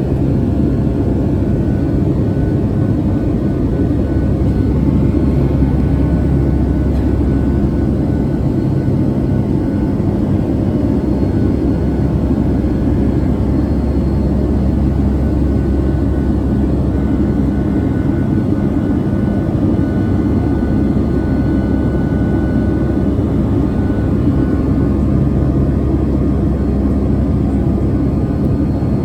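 Steady drone of a Boeing 757-200's engines and rushing air, heard inside the passenger cabin as the airliner climbs after takeoff. It is a low, even rumble with a few faint steady whines above it.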